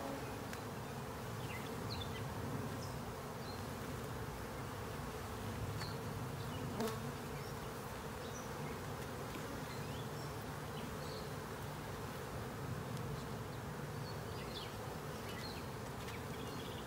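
Steady hum of a honey bee colony buzzing over an open hive box, with one sharp knock about seven seconds in.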